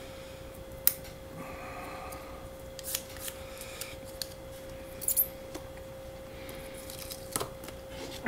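Disposable wooden chopsticks being split and handled, giving a few sharp, separate wooden clicks and taps, the loudest just under a second in, over a faint steady hum.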